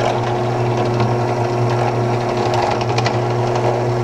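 Benchtop drill press motor running at a steady hum, spinning a shotshell roll crimper.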